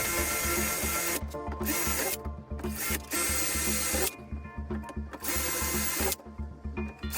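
A power tool running in on-and-off bursts of about a second each, over background music with a steady beat.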